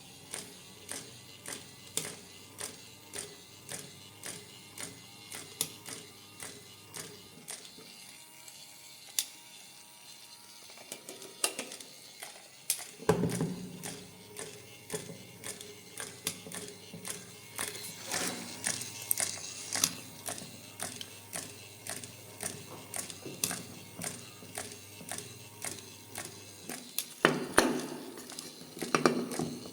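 Small geared mechanism of a Gundam 00 Haro robot toy clicking: ticks about once a second at first, then a faster, busier run of clicks, with louder knocks about 13 seconds in and again near the end.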